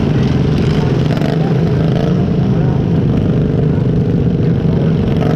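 Riding lawn mower engine running steadily at speed, heard close up from a camera mounted on the mower.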